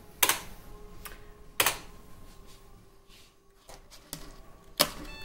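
Keys on an IBM computer keyboard pressed as the PC is told to reboot: two sharp clacks about a second and a half apart, then a louder clack near the end.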